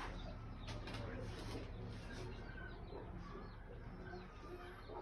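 Birds calling faintly over a low steady background hum, with a few faint clicks about a second in.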